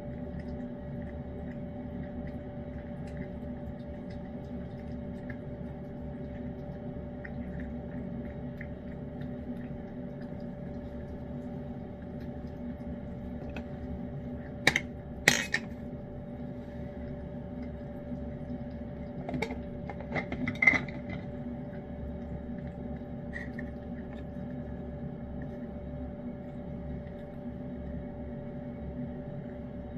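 A cat eating wet food from a dish, heard mostly as a few sharp clinks against the dish: two quick ones about halfway through, a short cluster a few seconds later, then one faint one. A steady hum runs underneath.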